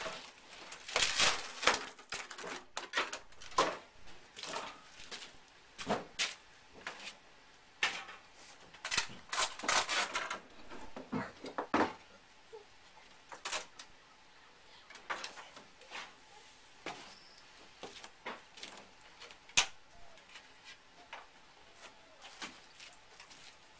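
Hands handling materials on a workbench: irregular knocks, clicks and rustling, busiest about a second in and again around eight to ten seconds, with one sharp click near twenty seconds.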